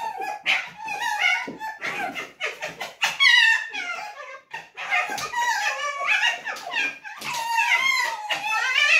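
Two pet foxes, a red fox and a white fox, play-fighting, with an almost unbroken run of high whining, yipping calls that slide up and down in pitch, loudest about three seconds in and again near the end.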